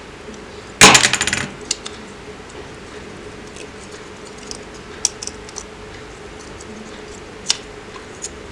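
Parts of a small die-cast toy car, its metal body, base and plastic interior, clinking and rattling as they are handled and taken apart. A loud clattering rattle comes about a second in, then a few light clicks.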